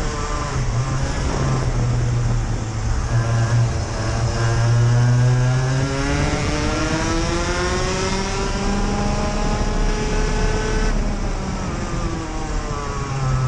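Senior Rotax Max Evo 125 cc two-stroke kart engines at full throttle, the note rising steadily as the kart accelerates, then dropping as the throttle is lifted about eleven seconds in; a second kart running just ahead adds its own engine note.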